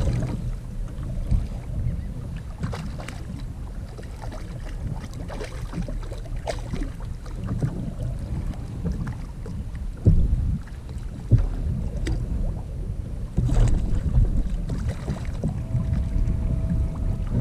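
Wind buffeting the microphone over open water, a steady low rumble, with a few scattered sharp knocks while a fish is fought and landed beside a kayak.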